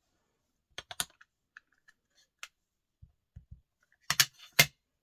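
Sharp plastic clicks and taps as a clear acrylic stamp block and an ink pad are handled on a craft mat: a quick cluster of clicks about a second in, a few light taps, then two loud clacks near the end.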